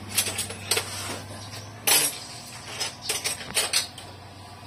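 Metal hand tools clinking and tapping on engine parts in a quick, irregular series of sharp clicks, with a steady low hum underneath.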